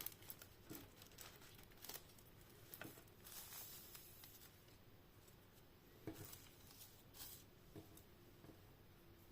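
Faint handling of a Blu-ray steelbook and its packaging: scattered light clicks and taps, with a short stretch of plastic crinkling a little over three seconds in.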